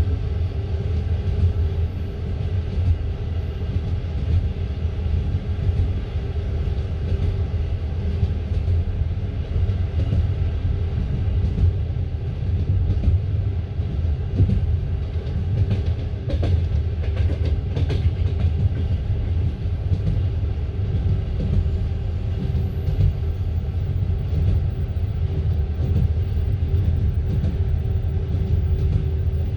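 Passenger train coach running along the track at speed, heard from inside the carriage: a steady low rumble of wheels on rails with a steady hum, and a few sharp clicks a little past halfway.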